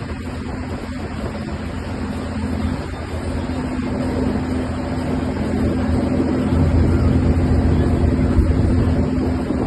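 Riverboat engine running with a steady low drone that swells louder for a few seconds near the end.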